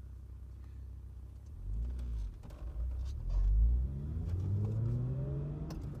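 Mazda MX-6 engine heard from inside the cabin: idling, then a heavy low rumble as the car pulls away in first gear, and the revs climbing steadily as it accelerates. A few sharp clicks sound over it.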